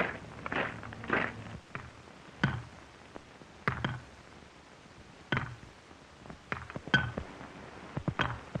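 A series of separate dull knocks, roughly one every second or so, some with a slight ring.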